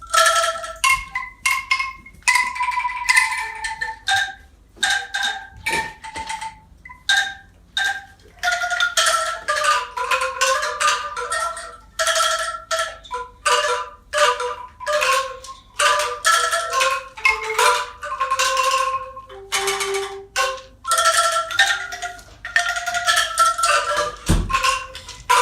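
A tuned mallet percussion instrument of the xylophone kind, struck one note at a time in an uneven, wandering melody, each note a sharp strike followed by a short ring.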